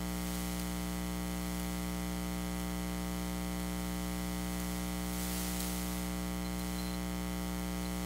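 Steady electrical hum with a string of overtones and a faint hiss from the sound system, while the wireless microphone has cut out.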